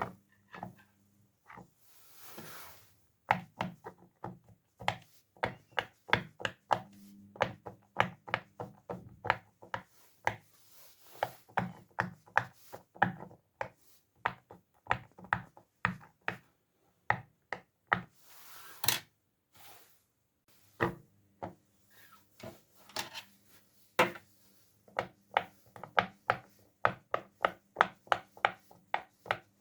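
Plastic fidget toys (pop tubes and pop-its) worked by hand: a long run of sharp, irregular clicks and pops, several a second, with a short rustle a little past the middle.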